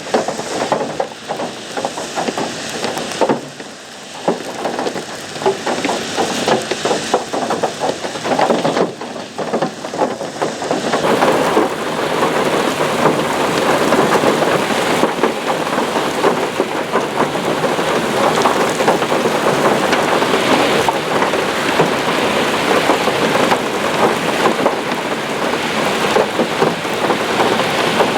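Hail and heavy rain pelting down on a surface in a dense, continuous clatter of hits. It grows louder and denser from about eleven seconds in.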